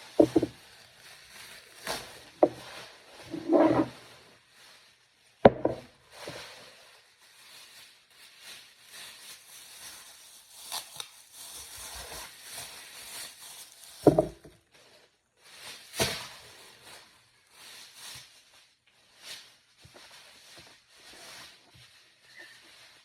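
Groceries being handled and cleaned: packaging rustling and rubbing, with a few sharp knocks as items are set down on a hard surface.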